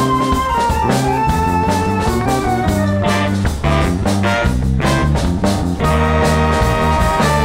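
Live band playing an instrumental passage with no vocals: flute and horns, including baritone sax and trumpet, over electric bass, drums and guitar. A melody moves in steps over a repeating bass line, settling into held notes about six seconds in.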